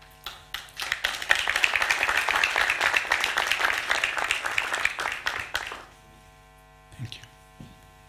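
Audience applauding: the clapping builds up within the first second and dies away about six seconds in.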